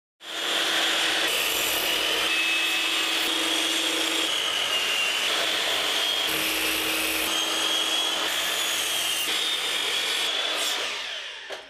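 Makita LS1216L sliding compound mitre saw, with its 305 mm, 70-tooth blade, running and cutting through timber: a steady sawing sound with a high whine over it. Its character shifts slightly every few seconds, and it fades out near the end.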